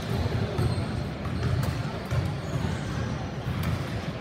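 A basketball bouncing a few times on a hardwood gym floor, with spectators' talk under it.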